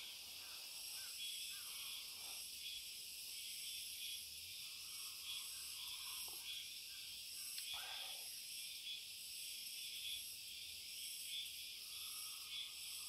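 Faint, steady, high-pitched chorus of insects, unbroken throughout, with a few brief soft sounds lower down now and then.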